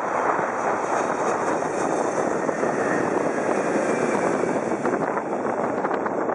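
Boeing 777 jetliner passing low overhead on final approach with its landing gear down: steady jet engine noise with a high rushing hiss that swells through the middle and eases off as the aircraft moves away.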